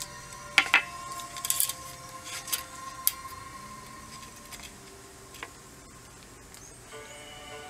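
Metal tape measure being pulled out and laid along a wooden plank: a scatter of sharp clicks and rattles, most in the first three seconds, with a single click later on.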